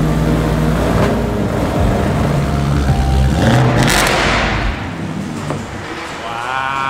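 BMW E90 M3's 4.0-litre V8 running with a deep exhaust note, revving up about three and a half seconds in; the engine sound stops about a second later.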